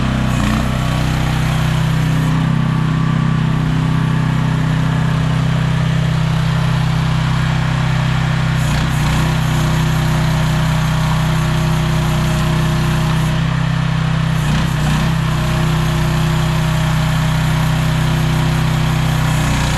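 The CFG Industrial QK16R mini excavator's small engine running steadily, with a few brief changes in tone along the way.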